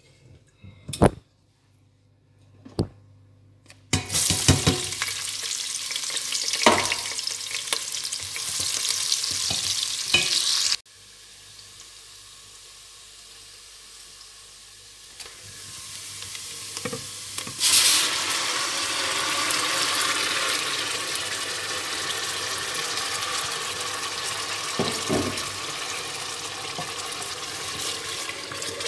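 Pepper and onions frying in hot oil in a steel pot, a steady loud sizzle with a few knocks before it starts. The sizzling breaks off suddenly about eleven seconds in, then comes back strongly a few seconds later and carries on.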